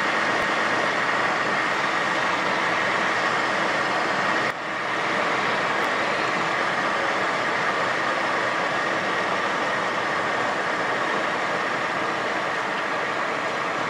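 Cockpit noise of a Cessna Citation XLS twin-turbofan jet during the landing: a steady rush of air and engine whine with a steady high tone running through it. It dips briefly about four and a half seconds in.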